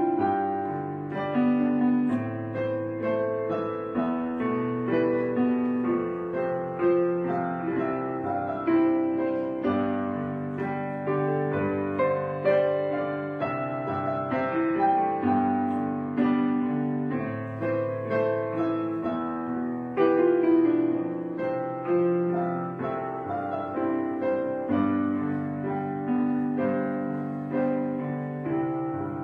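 Background piano music with a steady flow of struck notes.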